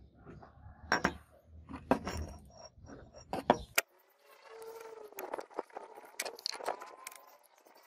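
Light clicks and taps of a small brass block being handled and set down on a wooden tabletop. About four seconds in these give way to quieter scratchy rubbing.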